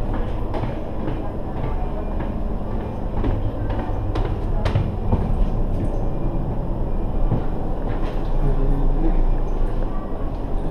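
Passenger ferry's engines and machinery running, a steady low drone heard through the inside of the hull, with a few scattered clicks and knocks.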